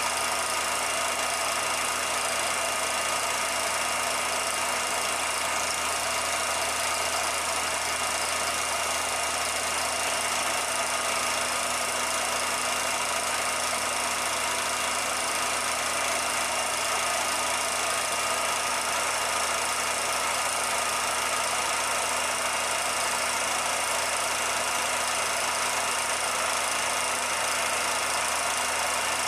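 A machine running steadily under a constant hiss, with a faint high whine, unchanging throughout.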